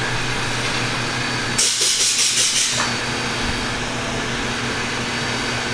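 A steady hum of shop machinery, with a loud hiss of compressed air about one and a half seconds in that pulses about six times in just over a second.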